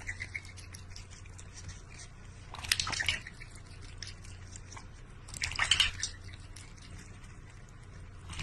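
Cat lapping water from a stainless-steel bowl: a run of small wet clicks and drips, with two louder bursts of noise about three and six seconds in, over a steady low hum.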